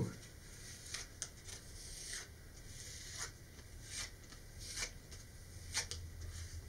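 Faint, scattered rustles and scratches of paper: fingers rubbing and dabbing a glued paper wrap that lies on a paper towel, using a small wad of paper towel.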